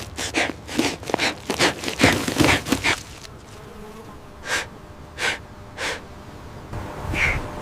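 A dog breathing in short, gasping breaths, about three a second for the first three seconds, then slowing to a few spaced gasps.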